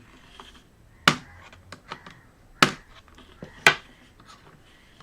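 Three sharp plastic clicks, about a second apart, with lighter ticks between, as the laptop's top panel is pried off its heat-softened plastic studs with a screwdriver and soldering iron.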